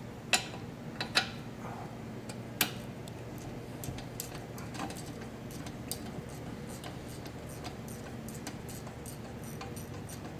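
Irregular metallic clicks and clinks of hand tools on the brake assembly, with a 13 mm socket wrench ratcheting as the rear caliper is unbolted. A few sharp clicks come in the first few seconds, then lighter ticking.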